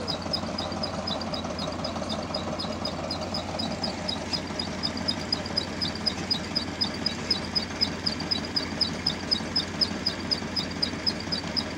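Tractor engine running steadily, driving the spray pump of a tractor-mounted field sprayer. Over it runs an even high ticking, about four a second, louder in the second half.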